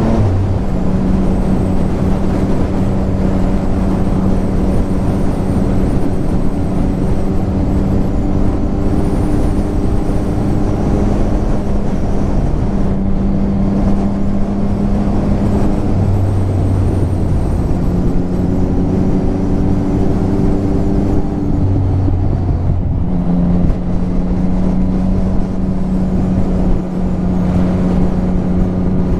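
A motorcycle engine running steadily at cruising speed under wind rush, heard from on the bike. Its note shifts slightly a few times.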